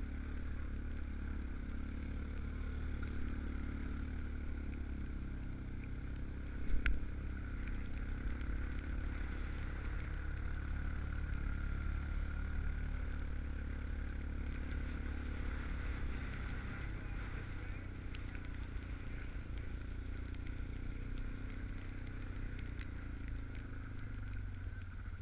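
Tracked Yamaha Rhino 700 side-by-side running steadily under way through deep snow, its engine and drivetrain making a continuous drone. A single knock about seven seconds in.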